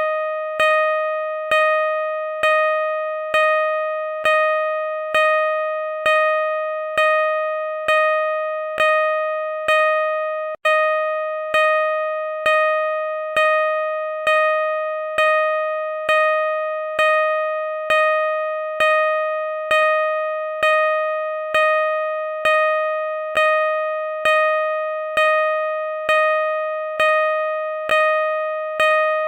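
Car reverse parking sensor beeping: a mid-pitched electronic tone repeating at a steady rate of about three beeps every two seconds, each beep fading a little before the next. The rate does not speed up. There is a very short gap about ten seconds in.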